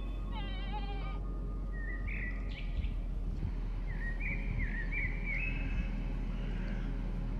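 Goats bleating: one long wavering bleat about half a second in, then shorter, higher calls a couple of times later, over a steady low rumble.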